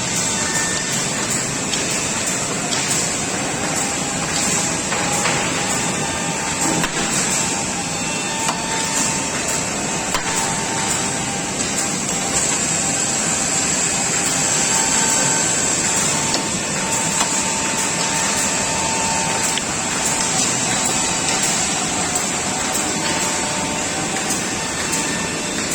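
Multi-spindle line boring machine (63 spindles) running: a steady mechanical whir with a thin whine that comes and goes, and light clicks and knocks throughout.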